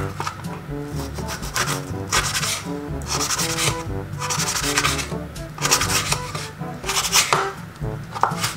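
Santoku knife sawing through raw pork belly on a plastic cutting board: a series of short scraping cutting strokes, over background music.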